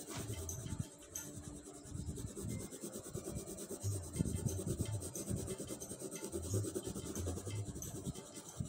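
Coloured pencil rasping on paper in quick, irregular back-and-forth shading strokes.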